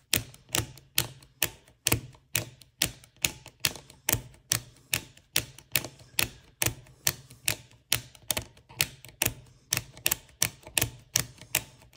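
Lit push-button switches on a Tektronix 7904 oscilloscope clicking as they are pressed over and over, about three clicks a second. The sticky switches are being worked in after a dose of WD-40 to free them up.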